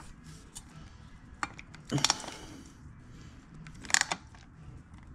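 Hand pop-rivet gun worked by hand, its jaws and handles giving sharp metallic clicks and clacks as it pulls a rivet into the fan bracket on the radiator: a brief click about a second and a half in, a cluster around two seconds, and the loudest clack about four seconds in.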